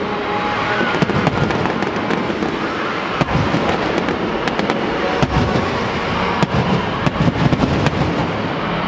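Fireworks going off: a dense run of bangs and crackling cracks, one after another.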